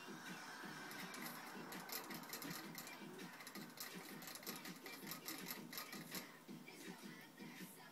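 Rabbit drinking from a hanging water bottle, its licking making the metal sipper tube clatter in rapid, uneven clicks.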